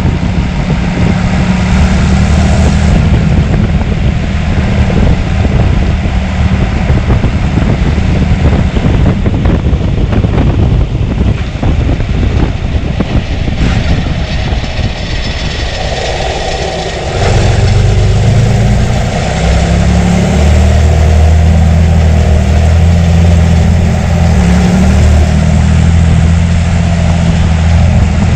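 John Deere 3350 tractor's 6.6-litre six-cylinder diesel engine running steadily; about two-thirds of the way through it grows louder and deeper.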